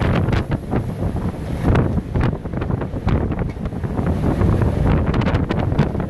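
Strong blizzard wind buffeting the microphone: a loud, steady low rumble with gusts that come and go.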